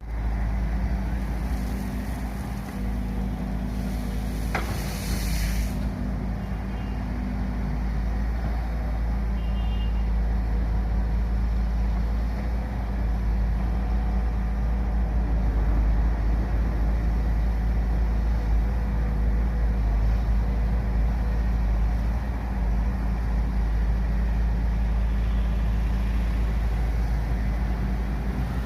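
Heavy road-construction machinery engine running steadily with a deep rumble, with a short hiss about five seconds in.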